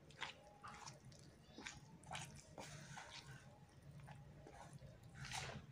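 Faint wet squishing of a hand mixing rice flour and water into batter in a bowl, in irregular strokes, over a steady low hum.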